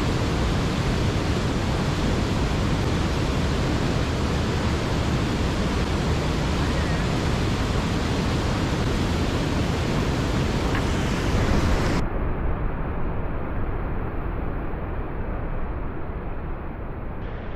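Steady roar of a river waterfall and whitewater, the Cuyahoga running high on a dam release. About twelve seconds in the roar turns duller, losing its hiss.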